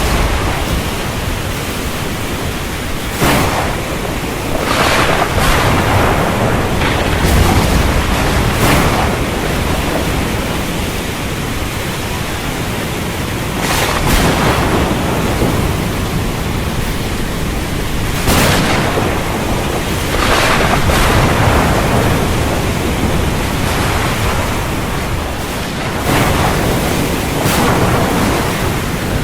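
Storm wind and ocean surf making a continuous rush of noise, swelling in surges every few seconds as gusts and waves break.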